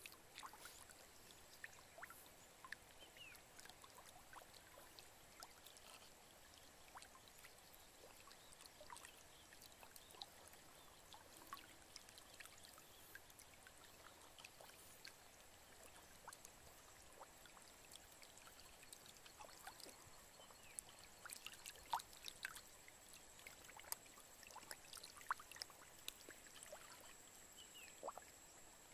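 Faint small splashes and trickles of many fish wriggling and flopping in very shallow muddy water, a few sharper splashes about three quarters of the way through, over a thin steady high tone.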